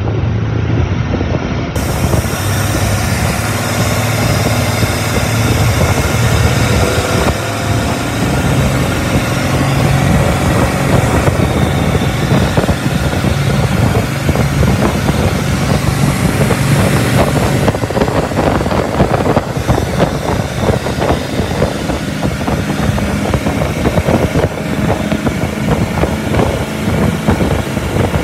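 Rebuilt 1975 Chrysler 360 small-block V8 marine engine running steadily. Its speed picks up slightly about a quarter of the way in.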